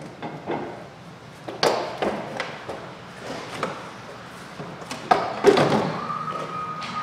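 Several knocks, taps and clicks of plastic engine-bay parts as the air intake duct is worked loose and lifted out of a 2012 Chevrolet Equinox's engine bay. The loudest knock comes about five and a half seconds in.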